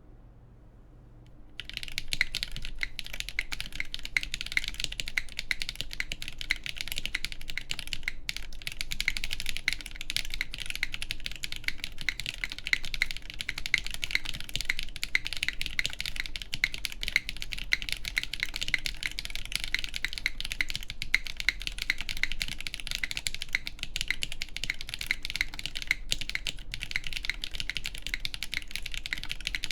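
Continuous fast typing on a Neson 700E mechanical keyboard with lubed KTT Yexia linear switches on an aluminium plate, with GMK keycaps: a dense run of key clacks that starts about a second and a half in.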